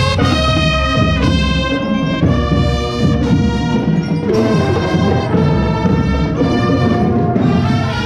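Brass music: trumpets and trombones playing a melody in held notes over a low drum-like backing.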